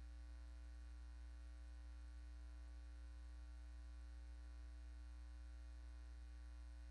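Faint, steady low electrical hum, mains hum in the recording, with a few fainter steady higher tones and no other sound.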